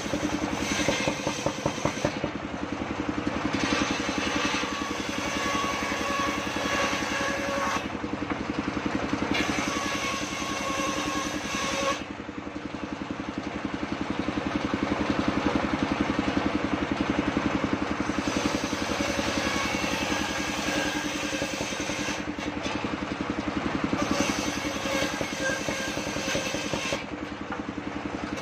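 Petrol-engine-driven table circular saw running steadily while its blade rips a log into boards. The hissing cutting noise comes and goes with each pass through the wood, over a steady engine drone.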